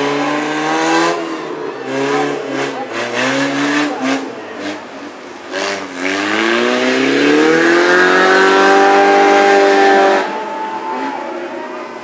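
Stock car's engine revving hard in short bursts with quick lifts off the throttle, then climbing steadily in revs and holding high for several seconds before backing off about ten seconds in.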